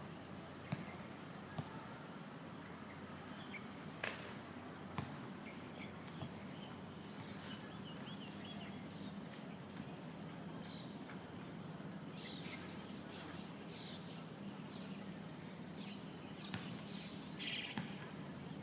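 Outdoor ambience: scattered short bird chirps over a steady high-pitched insect buzz and a low hum, with a few light clicks.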